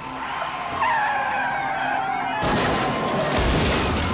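Tyres squealing in falling tones, then a loud rough skid about two and a half seconds in, as a police car's PIT maneuver spins a Chevrolet Suburban across the freeway.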